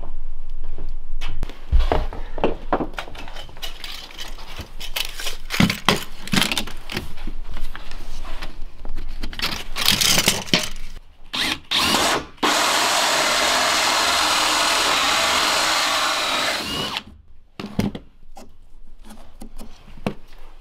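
Knocks and clicks of tools being handled, then a cordless drill with a hole saw bit running steadily for about four and a half seconds, boring a round hole through the barn-board wall sheathing, and stopping abruptly.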